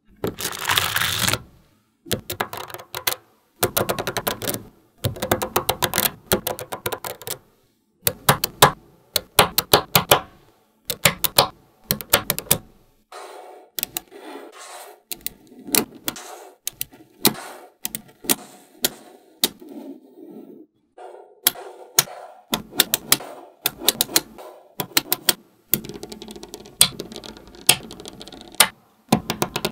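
Small magnetic balls clicking and snapping together in quick rattling runs as they are handled and joined. The runs come in bursts separated by brief silences.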